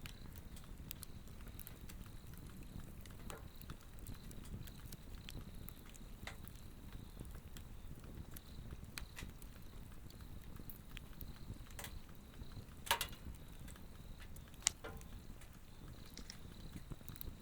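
A Swedish torch burning, crackling with scattered small clicks and two louder pops in the second half over the low steady rumble of the flame. A steady high-pitched insect trill sounds behind it.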